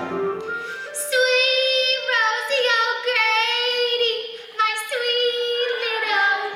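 A woman singing solo in a high register: a run of long held notes with vibrato, sliding between pitches.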